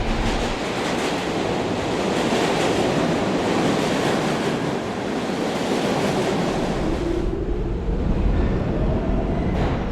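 New York City subway train running, a loud, steady noise of the moving train; after about seven seconds a whine rises in pitch as the train picks up speed.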